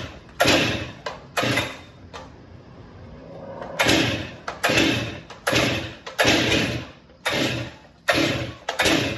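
Stihl 261 C 50cc two-stroke chainsaw being pull-started: a string of quick, sharp pulls on the recoil starter cord, in two runs with a short pause between, and the engine does not catch.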